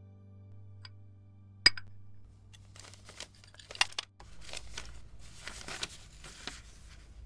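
A single sharp clink of china about two seconds in, then several bursts of paper rustling as a folded note is unfolded.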